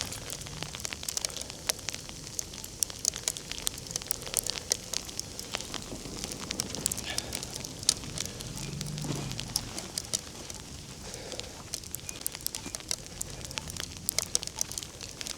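Snow crackling and crunching with dense, irregular ticks. About nine seconds in there is a brief low whine that rises and falls, from a car stuck in the snow spinning its wheels.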